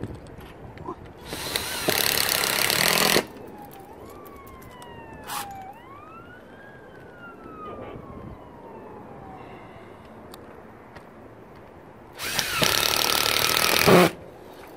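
Cordless impact driver running screws through a wire-mesh cage into roof shingles: two runs of about two seconds each, one just after the start and one near the end. Between them a distant siren wails, slowly rising and falling in pitch.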